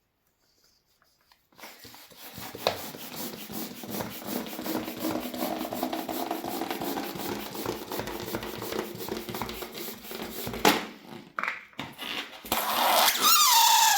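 A rubber balloon being inflated: scratchy rubbing and the rush of air into the balloon. Near the end the neck is let go and air squeals out, loud and wavering in pitch, as the balloon deflates.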